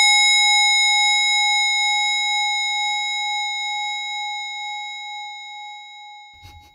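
A single bell-like chime struck once: a clear ringing tone with higher overtones that starts loud and fades slowly over about six seconds, with a gentle wavering in its pitch.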